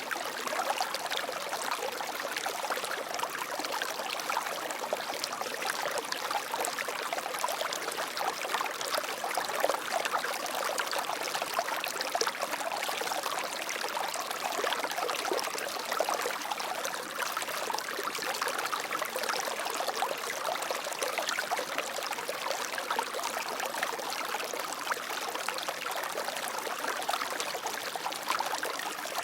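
Water flowing steadily, an even splashing rush with fine trickling detail and little deep rumble.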